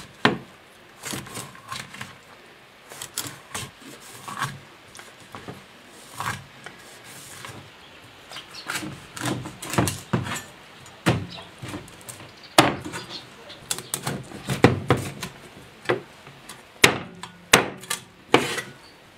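Kitchen knife scoring and cutting a large salted fish on a wooden chopping board: irregular knocks of the blade striking the board, coming more often in the second half.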